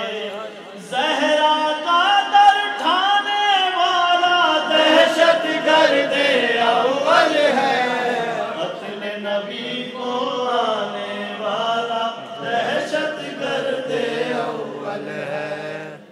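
A man chanting a manqabat, a devotional poem in praise of the Prophet's family, unaccompanied, in long held notes that bend and waver.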